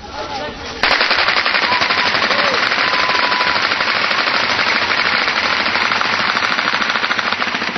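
Automatic gunfire: one long, unbroken burst of rapid shots that starts suddenly about a second in and runs for about six and a half seconds before stopping near the end.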